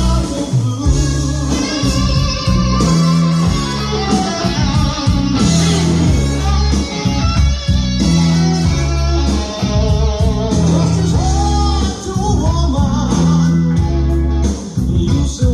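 Guitar-led rock or blues music with a strong bass line, a steady beat and some singing.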